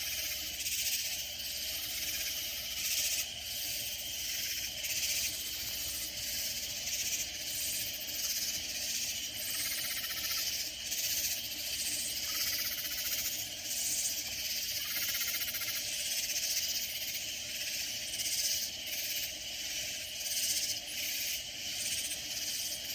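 Loud chorus of katydids calling: a dense, high-pitched raspy buzz that swells and pulses in rhythm.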